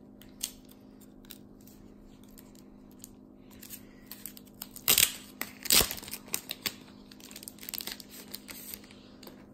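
Plastic packaging crinkling and rustling as it is handled, in short irregular bursts, the two loudest about five and six seconds in, over a low steady hum.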